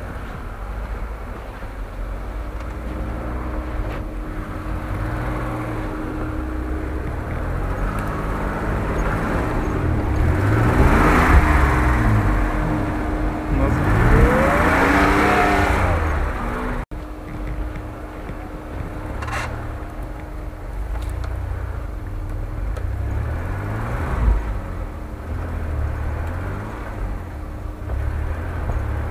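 UAZ-469 engine revving under load as it pushes through deep snow, the note rising and falling repeatedly and loudest when the vehicle is closest, around the middle. About two-thirds of the way in the sound breaks off abruptly and the engine is heard again more faintly.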